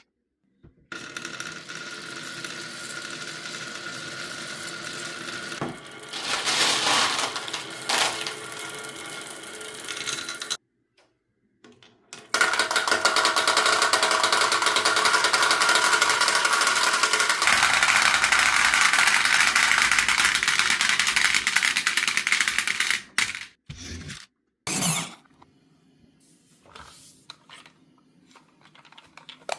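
Marbles rolling and clattering down a wooden marble run and dropping into a toy truck's bed: a dense rattle that stops for a moment about ten seconds in, comes back louder for about ten seconds, then thins to scattered clicks.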